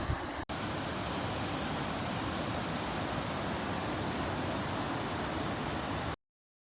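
Steady rush of falling water from a waterfall. It drops out for an instant about half a second in and cuts off abruptly near the end.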